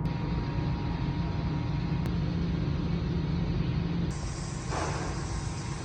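Steady low vehicle rumble; a low steady hum in it stops about four seconds in, followed shortly by a brief swish.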